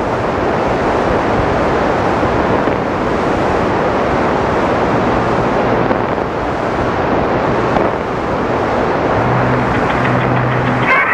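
Steady rushing noise on an old medium-wave radio recording, with a few faint low tones under it near the end.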